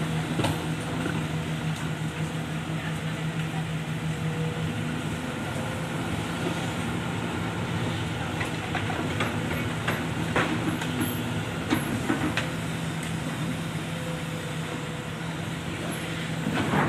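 Heavy diesel machinery running steadily at an excavation, an excavator working beside a dump truck, with a constant low hum and a few sharp knocks around ten to twelve seconds in.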